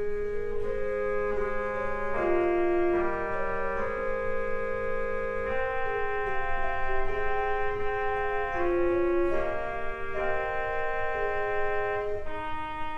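Organ playing slow, sustained chords, the held notes changing every second or so.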